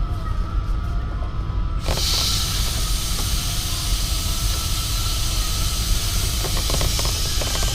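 R22 refrigerant gas hissing as it is blown through an air-conditioner's condensate drain line to flush it, starting suddenly about two seconds in, over a steady low rumble.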